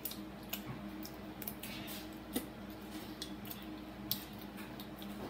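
Irregular light clicks and taps of chopsticks against each other and the ceramic noodle bowls while noodles are eaten, over a low steady hum.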